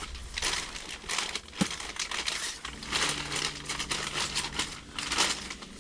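Plastic lure packages crinkling and rustling in irregular bursts as they are handled and sorted through, with a sharp click about one and a half seconds in.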